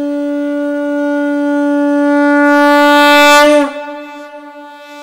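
A conch shell (shankh) blown in one long, steady note that swells a little, then sags in pitch and fades away about three and a half seconds in.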